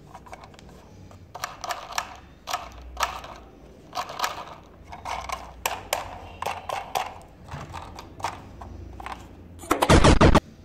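Hard plastic toy train engine being handled and turned over in the hands: irregular clicks and knocks of its plastic body and wheels. Near the end comes one loud burst of about half a second.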